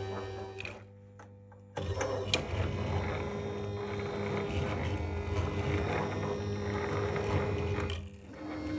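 Robotron Reiss K6418.31 flatbed plotter running a test drawing, its pen carriage drive motors moving the ball pen with a steady mechanical whine. The motors stop briefly about a second in, then start again with a sharp click and run on.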